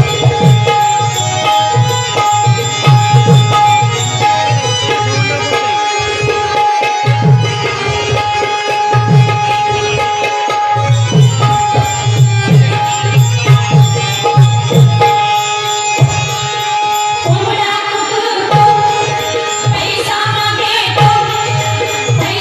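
Instrumental tamasha music: a hand drum beats a steady pattern of low strokes under sustained melodic notes, and the sound grows fuller near the end.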